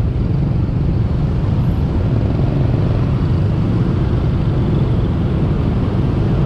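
Steady drone of dense motorbike and scooter traffic, heard from a scooter riding within it.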